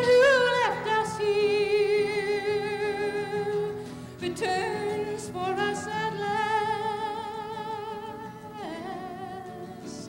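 A woman singing a slow folk melody in long held notes with vibrato, over acoustic guitar. A new note begins about five seconds in, and near the end the voice falls away in a downward slide.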